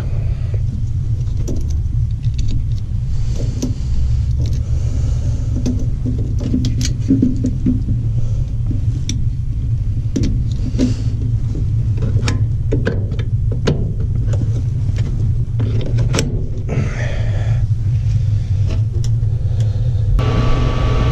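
Lennox ML193 gas furnace running with a steady low rumble, with scattered clicks and taps from work on the unit. Near the end a steady higher tone with a hiss comes in on top.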